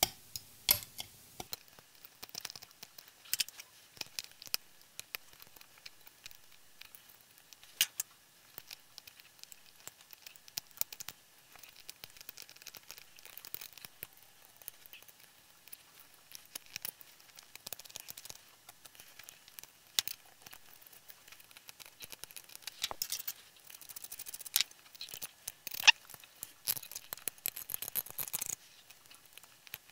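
Hobby knife and small hand tool scraping and picking leftover support material off a PLA 3D print, with scattered small clicks, snaps and scrapes of plastic.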